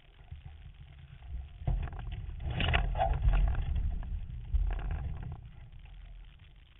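Wind buffeting and water noise on a boat on the water: a low, unpitched rumble that swells in the middle and fades toward the end.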